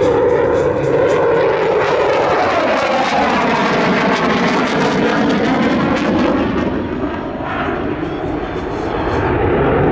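Dassault Rafale fighter's twin Snecma M88 turbofans running loud in a display pass: a dense jet roar with a faint whooshing tone sliding up and down through it. It eases a little about seven seconds in, then swells again near the end.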